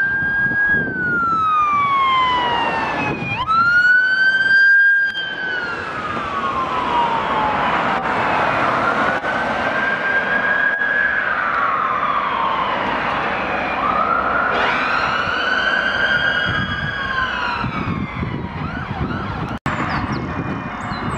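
Emergency ambulance sirens on the wail setting, slowly rising and falling in pitch every few seconds, over the rumble of passing road traffic. Near the end the sound cuts off suddenly and a fainter, different siren pattern begins.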